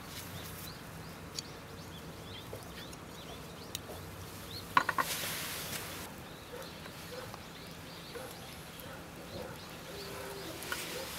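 Small birds chirping over a quiet outdoor background, with a quick cluster of sharp clicks about five seconds in, the loudest sound, followed by a brief rustle.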